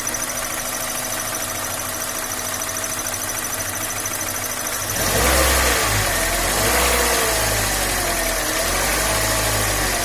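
2010 Hyundai Elantra engine idling steadily, then revved up about halfway through and held at wavering higher revs. The revs are raised to bring out a whistle near the clutch, which the owner puts down to the aluminium clutch release fork worn loose on its steel pushrod and whistling from vibration.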